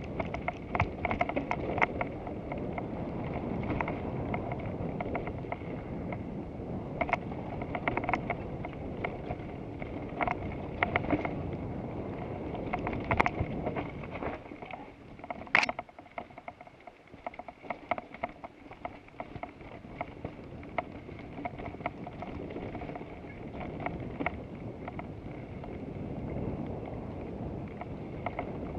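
Wind rushing over an action camera's microphone and tyre rumble from a road bike riding at speed, with scattered sharp clicks and rattles. The rumble drops off for a few seconds about halfway through, just after one sharp crack, then builds again.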